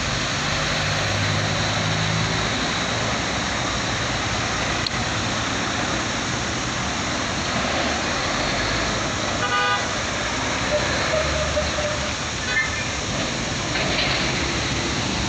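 Road traffic at a busy junction: a semi-trailer tanker truck's diesel engine and passing cars. A vehicle horn gives a short toot about nine and a half seconds in, and a fainter one follows a few seconds later.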